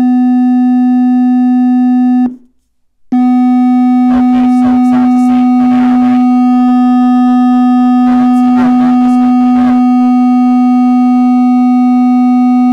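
A Harman Kardon Bluetooth speaker plays a steady 250 Hz sine test tone from a tone-generator app, with overtones stacked above it. The tone cuts out for under a second about two seconds in, then comes back.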